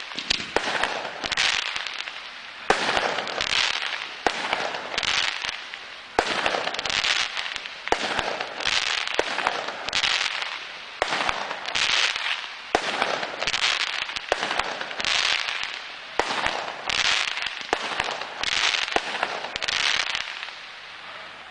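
Fireworks going off in steady succession, about one shot a second, each a sharp crack followed by a short crackling hiss; they stop about a second before the end.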